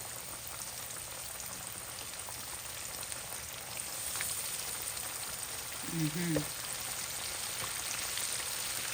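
Flour-coated chicken wings frying in hot oil in a pan, a steady crackling sizzle that grows a little louder about four seconds in.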